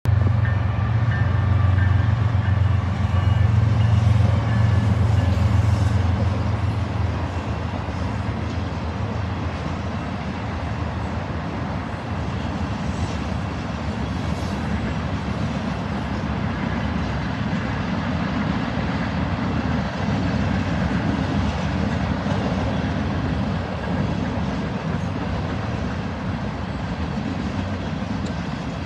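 A diesel freight locomotive passing close, its engine a deep drone for the first seven seconds or so, then the steady rolling noise of freight cars going by on the track.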